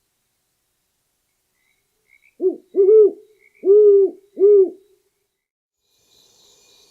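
Great horned owl hooting: a series of four deep hoots about two seconds in, the first short and the rest longer.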